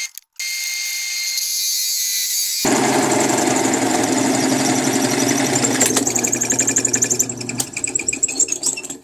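Drill press motor whining at speed, stopping briefly just after the start, then a hole saw biting into the workpiece with a loud rough grinding that turns to a fast rattling chatter near the end.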